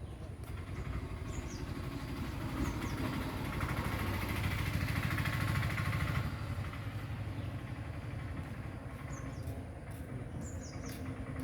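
Passenger train running, a steady rumble that swells to its loudest midway and drops off sharply about six seconds in, with a few short high squeaks.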